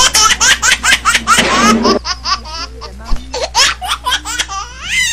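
A person laughing hard in quick, high-pitched bursts. About two seconds in it drops to quieter, sparser sounds.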